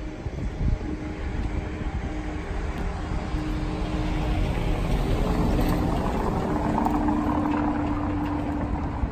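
A car driving over cobblestones: a steady engine hum with tyre rumble that swells through the middle and eases a little near the end.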